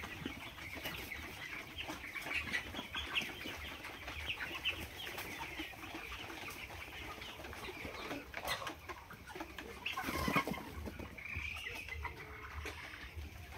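A large flock of chickens clucking and chattering, many short calls overlapping continuously, with a louder burst of calling about ten seconds in.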